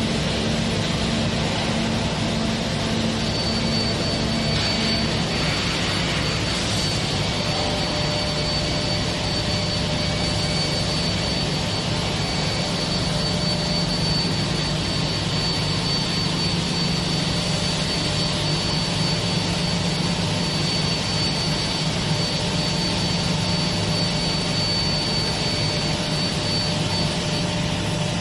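Hydraulic press line and its chain-driven roller conveyor running: a steady, loud machine din with a low hum. A thin high whine comes in a few seconds in and drops out near the end.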